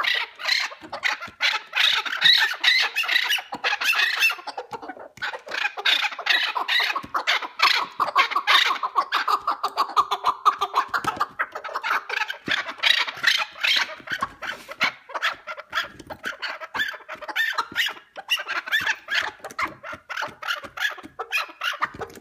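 Chukar partridge calling: a long, rapid run of repeated clucking notes with a short pause about five seconds in.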